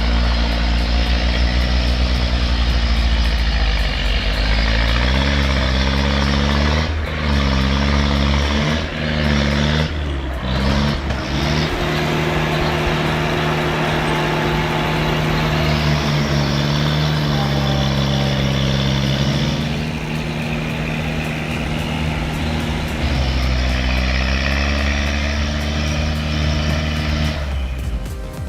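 IMT 560 tractor's diesel engine running hard during forest logging work. Its speed drops and picks up again several times in the first dozen seconds, then it runs steadier with a few more changes in pitch.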